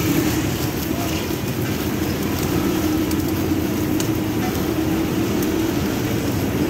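Steady low mechanical rumble with a faint held hum and a few faint ticks.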